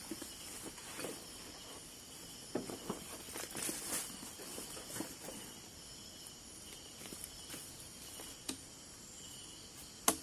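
Crickets or other insects chirring steadily in the background, with scattered short rustles and light knocks throughout and a sharp click near the end.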